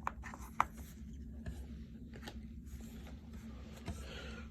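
Trading cards and foil pack wrappers being handled: two light taps in the first second, then soft rustling near the end, over a steady low room hum.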